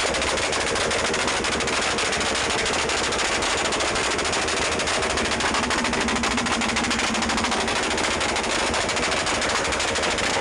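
Motorcycle exhausts revved hard, giving a continuous rapid crackle of sharp pops like gunfire.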